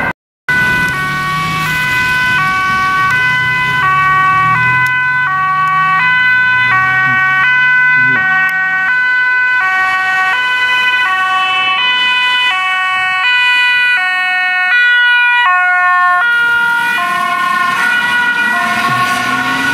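Dutch ambulance two-tone siren alternating between a high and a low pitch about twice a second, over a low engine rumble in the first half. Near the end the pitch wavers as the ambulance drives off.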